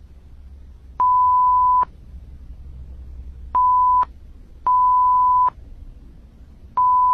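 A censor-style bleep tone, one steady pure beep, sounds four times, each lasting between half a second and just under a second. The first comes about a second in and the last near the end. Faint room noise lies between the beeps.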